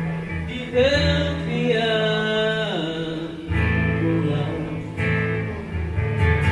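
Live acoustic band music: a singer holds a wavering sung phrase over acoustic guitar, with the voice most prominent about a second in.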